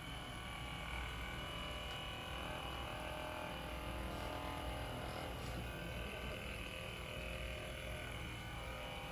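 Steady electric motor hum with a thin whine over it, running without a break: a handheld percussion massage gun working on the leg.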